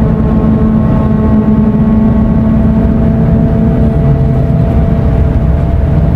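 Scania Euro 6 diesel engine of an Irizar i6S coach running under way, heard on board: a loud, steady rumble with a droning hum whose pitch drops lower about four seconds in.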